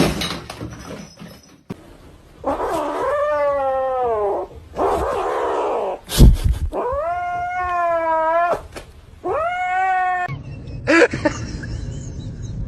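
A cat yowling in three long, drawn-out calls that waver in pitch, followed by a run of shorter calls near the end.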